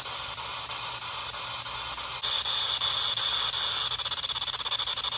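PSB7-Pro spirit box sweeping the FM band: radio static hissing from its speaker. About two seconds in it gets louder, with a sharper high hiss and a fast, even fluttering as it steps through stations.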